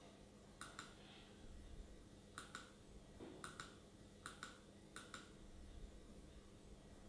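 Computer mouse button double-clicked five times at uneven intervals, each time two quick faint clicks, over a faint steady low hum.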